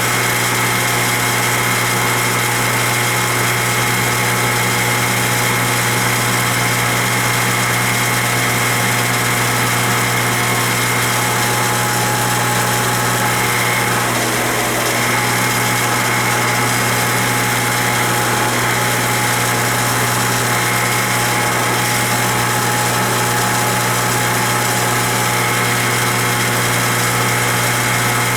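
Craftsman Model 113 table saw running steadily on its new 3 HP 220 V motor: a loud, constant low hum with a high whine above it.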